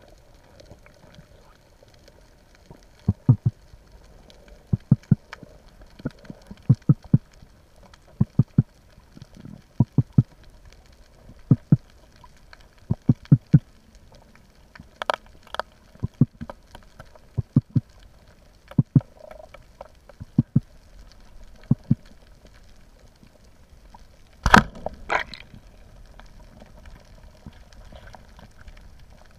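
Speargun fired underwater about 24 seconds in: one sharp, loud crack, then a smaller rattle about half a second later as the shot strikes. Before the shot, soft low thumps come in pairs or threes every second or two.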